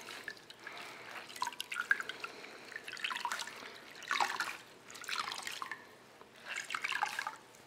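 Water dripping and dribbling from a soaked wool sweater into a stainless steel bowl of wash water as it is squeezed by hand, in about five short spurts.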